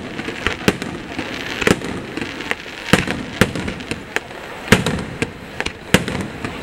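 Fireworks display: aerial shells bursting one after another at irregular intervals, about one or two sharp bangs a second, over a steady spatter of smaller pops and crackle.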